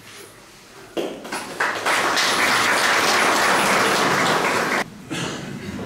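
Audience applauding, starting about a second in, quickly swelling to a dense steady clapping and cutting off abruptly near the end.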